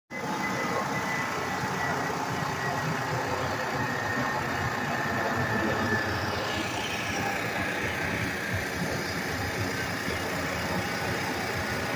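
Jet airliner flying overhead: a steady engine roar with a thin high whine.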